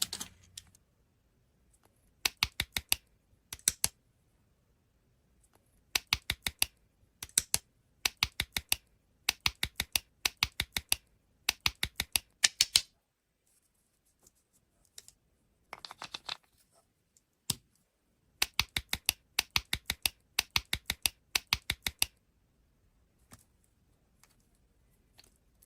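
Runs of rapid, sharp clicks, several in quick succession, with short pauses between the runs.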